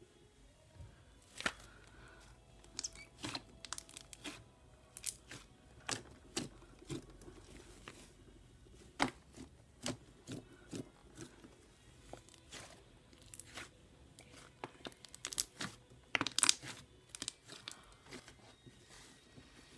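Slime being squished and stretched, giving irregular sharp pops and crackles, with a cluster of louder pops about sixteen seconds in.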